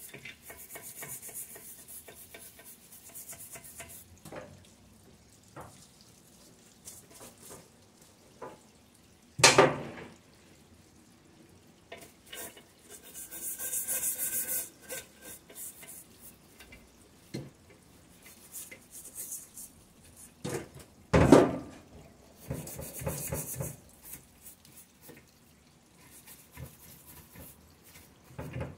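Hand scraping and scrubbing hardened, dried oil sludge out of a removed engine oil pan: scattered small metallic clicks and rubbing with short bursts of hiss, and two loud knocks, one about a third of the way in and one about two-thirds in.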